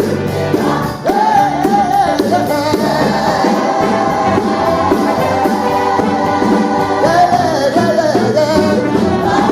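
Gospel choir and band performing live, voices holding long sung notes over steady instrumental backing, with a brief dip about a second in.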